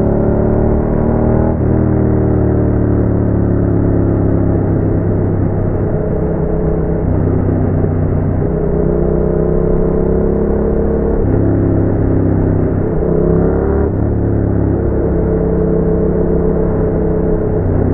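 Yamaha MT-07's 689 cc parallel-twin engine running through a Roadsitalia aftermarket exhaust while riding. The engine note holds and glides gently, with sudden pitch changes about a second and a half in and twice more near the end.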